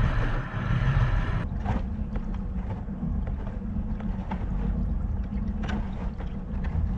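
Steady low rumble of wind on the microphone with water noise around a kayak, a few faint clicks scattered through it.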